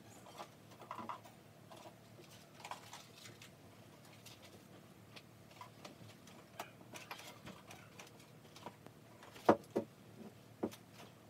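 Small objects being handled in a room: scattered light clicks and rustles, with a few sharper knocks near the end.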